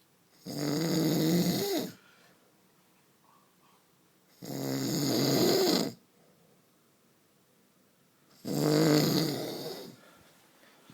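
A sleeping man snoring loudly: three long snores, each about a second and a half, coming roughly every four seconds.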